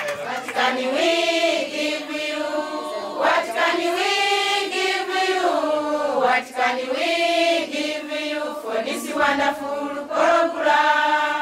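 A group of women singing a song together, in long held phrases that rise and fall in pitch.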